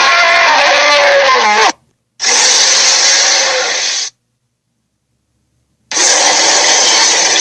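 Sharptooth dinosaur roar sound effects: a loud roar that drops in pitch and cuts off just under two seconds in, a second roar of about two seconds after a brief gap, then a third starting near six seconds.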